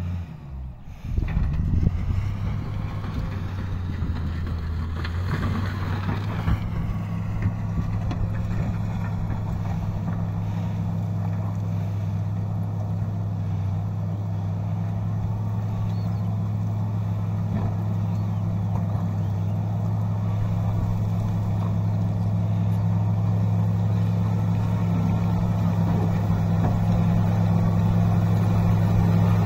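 Wheel loader's diesel engine running steadily as it pushes soil and broken asphalt, growing slowly louder as the machine comes closer.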